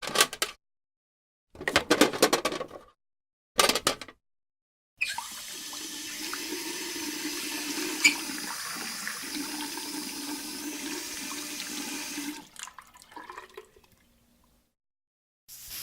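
A series of separately recorded bathroom sounds: three short bursts in the first four seconds, then water rushing steadily for about seven seconds before tapering off in gurgles.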